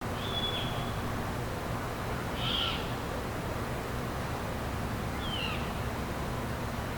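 Short, high-pitched calls from an unidentified night animal, three in all, a few seconds apart: a thin whistle ending in a quick drop, then a harsher scratchy call, then a falling whistle. A steady low hum runs underneath.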